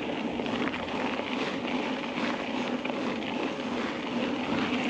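Wide knobby 29-plus bicycle tyres rolling over a gravel road: a steady crunching rumble of stones under the tread, with faint scattered ticks of small stones.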